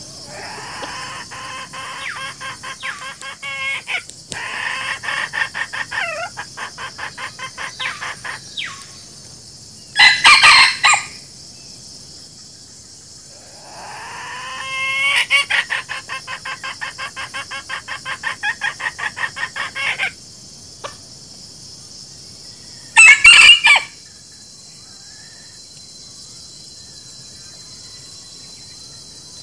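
Chickens calling: two long runs of rapid, repeated clucking, each several seconds long, and two short, very loud calls about thirteen seconds apart, over a steady high buzz of insects.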